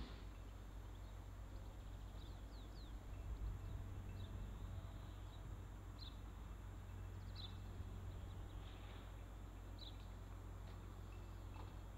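Small birds chirping: short, high, falling calls every second or two, over a steady low rumble.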